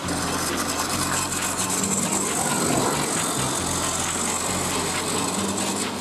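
A battery-powered Plarail toy train running along plastic track: a steady high motor and gear whirr with the clatter of the wheels. A low bass line of background music runs underneath.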